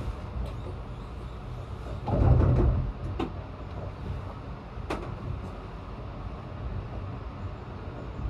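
Inside a Nagasaki Ropeway gondola cabin nearing the summit station: a steady low rumble of the cabin riding the cable, a heavier rumble about two seconds in, and a few sharp clicks.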